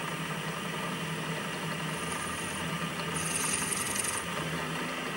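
Milling machine spindle running steadily with a drill bit chucked, a steady hum under a whirring machine noise. About three seconds in a brief high hiss rises for about a second as the bit touches the aluminium block to scratch-mark the hole position.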